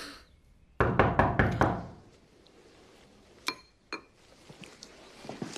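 Knocking on a door: a quick run of about six knocks, followed a couple of seconds later by a single light clink.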